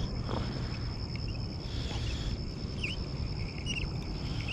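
Insects trilling in a steady, high-pitched drone, with a few short bird chirps in the second half and a low rumble underneath.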